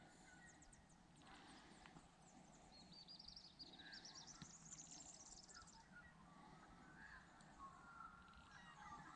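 Near silence with faint birdsong: scattered high chirps, and a quick run of notes that climbs in pitch around the middle.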